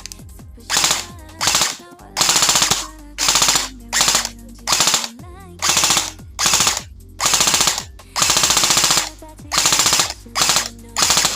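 Airsoft rifle firing about a dozen full-auto bursts in quick succession, some short and some held for nearly a second, each a rapid rattle of shots.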